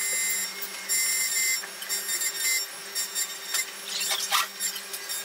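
Xhorse Dolphin XP005 automatic key cutting machine milling a key blade: the cutter spindle runs with a steady high whine, broken every second or so by a harsher scraping as the end mill cuts into the metal.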